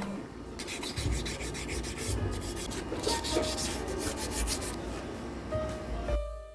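Sandpaper rubbed quickly back and forth by hand on a bicycle frame, a fast run of scratchy strokes with a few light knocks.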